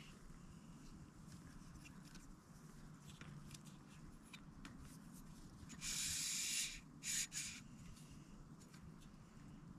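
Handling noise from a camera and tripod being repositioned: faint clicks and rubbing, then a burst of rustle about six seconds in, with two shorter rustles just after.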